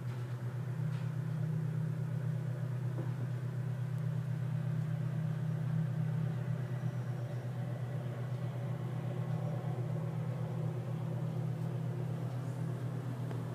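Steady low rumble of distant city road traffic, an even drone with no single vehicle standing out.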